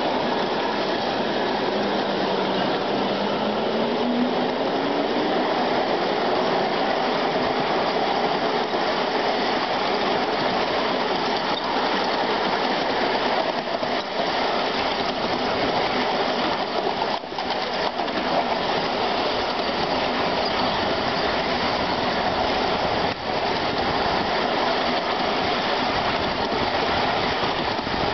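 Miniature railway train running on its track, heard from just behind a battery-electric model of Turbomotive: a steady rattle of wheels on rail. A motor whine rises in pitch in the first few seconds as the train gathers speed.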